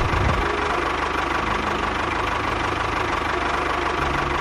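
A small engine or motor running steadily with a fast, even pulse.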